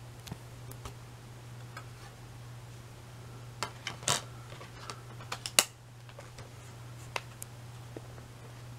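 Plastic DVD case being handled and opened: scattered clicks and taps, bunched together a little past halfway, where the sharpest click falls. A steady low hum runs underneath.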